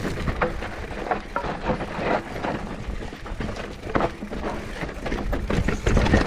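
Mountain bike riding over a rough dirt trail: tyres rolling over the ground with irregular knocks and rattles from the bike, over a steady low rumble.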